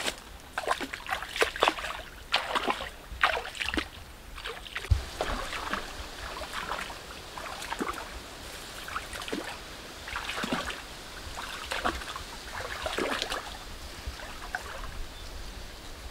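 Footsteps through leafy undergrowth, then, from about five seconds in, footsteps wading and splashing through a shallow stream, irregular and a step or two a second, over the stream's steady trickle.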